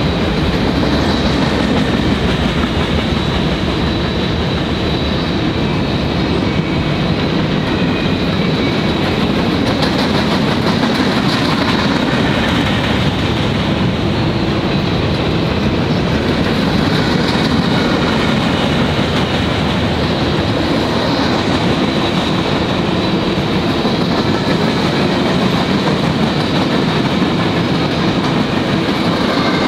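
The cars of a long mixed freight train rolling past steadily: covered hoppers, boxcars and tank cars. Their steel wheels make a continuous rumble on the rails.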